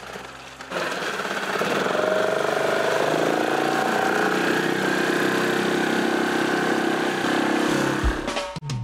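Small Yamaha outboard motor on an inflatable dinghy running under throttle, starting about a second in, its pitch creeping up before settling into a steady drone.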